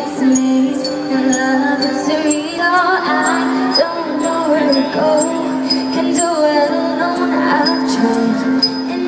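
Live pop band playing with a girl singing the lead, carried over the venue's amplified sound system. A bright high tick marks the beat.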